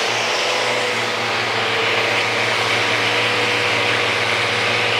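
Festool RO 90 sander with a 40-grit disc running steadily on the wood of a slab's natural edge, together with its dust extractor: a constant loud hiss over a low hum.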